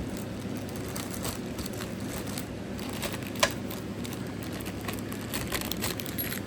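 Packaging being handled during an unboxing: faint rustling and small clicks, with one sharper click about three and a half seconds in, over a low steady hum.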